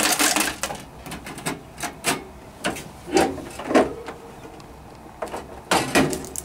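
Plastic quick-connect hose fittings and tubing being handled and snapped onto a water filter's inlet and outlet lines under an ice machine: a string of irregular clicks and knocks, with a longer rustle at the start and another near the end.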